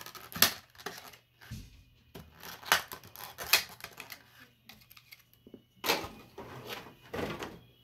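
Clear plastic blister packaging crackling and snapping in irregular bursts as it is flexed and pulled to free cards from the tray.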